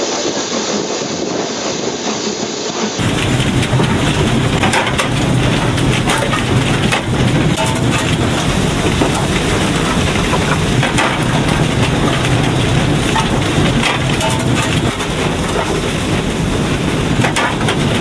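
Cab noise of a BR Standard Class 9F steam locomotive on the move: a steady rumble with rattling, clattering knocks throughout, louder from about three seconds in.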